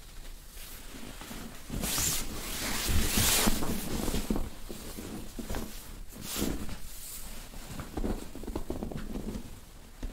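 Fabric rustling and rubbing of clothes and bedding as a massage therapist shifts position on the mat and moves the client's leg, in irregular swishes, loudest a couple of seconds in and again past the middle.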